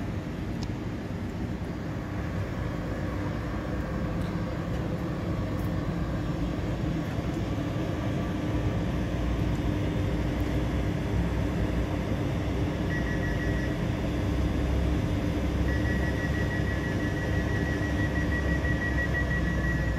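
MI2N Eole double-deck electric train humming steadily while stopped at the platform with its doors open. From about 13 seconds in, a high electronic beeping starts, breaks off briefly, then sounds on continuously: the door-closing warning before departure.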